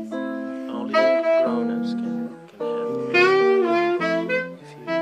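Tenor saxophone playing a bossa nova tune in phrases of held notes, with a brief break about halfway through and another near the end, over electric guitar accompaniment.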